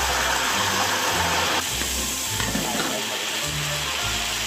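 Hot oil sizzling and bubbling in a large iron wok as sliced ingredients fry, with a ladle stirring through them. A steady hiss that shifts slightly about a second and a half in.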